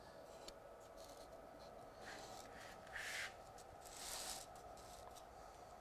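Faint scraping of a piece of card spreading sanitary silicone over polystyrene, in three short strokes about two, three and four seconds in.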